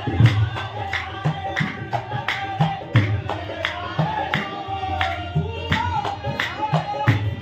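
Qawwali: men singing a wavering melody over a dholak drum and hand-clapping that keep a steady beat of about three strokes a second.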